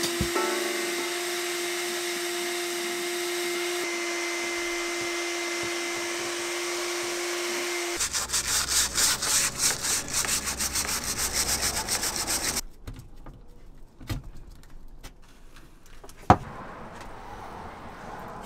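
A shop vacuum runs with a steady whine and hiss for about eight seconds, then cuts off. Next come about four seconds of quick back-and-forth scrubbing strokes, a sponge rubbing on a cabinet. After that it is quieter, with a few scattered knocks and a sharp click at the end.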